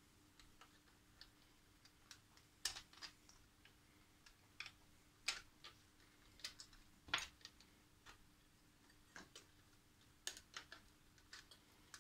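Faint, irregular clicks and taps of small cable connectors and metal parts being handled inside an opened ICOM IC-756 Pro III transceiver, a few sharper ones about three, five, seven and ten seconds in, over a faint steady hum.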